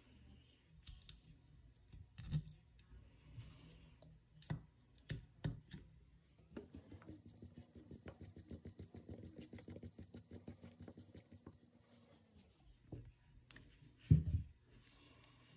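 Small metal parts clicking and tapping as a carburetor is handled and a wire spring is fitted to it, with a fast even run of ticks in the middle and one louder knock near the end.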